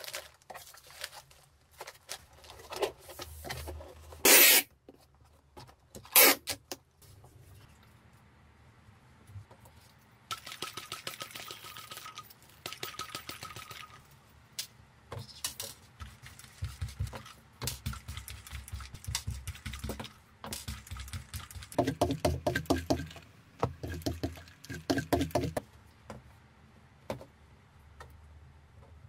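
Packing and handling noises: bubble wrap and plastic wrap crinkling in a cardboard box, with two short, very loud sharp sounds about four and six seconds in. Then a sticky lint roller rolled over a fabric tote bag with a papery crackle, quick back-and-forth strokes near the end, and the cloth smoothed and folded by hand.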